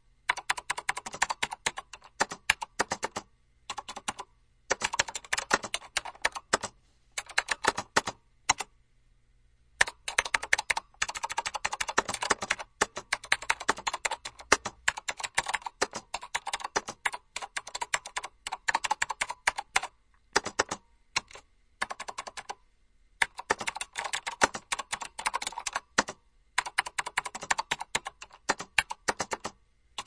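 Typing on a computer keyboard: fast runs of key clicks in bursts of a few seconds, with short pauses and a few single keystrokes between them.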